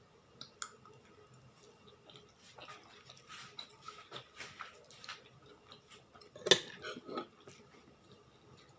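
A person eating: chewing and mouth sounds with scattered small clicks, and one louder sharp knock about six and a half seconds in.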